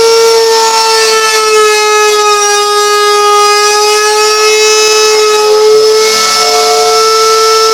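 Router motor mounted under a homemade router table running at full speed, a loud steady high whine. Its pitch sags a little through the middle and then recovers as a board is fed through the bit on a test cut.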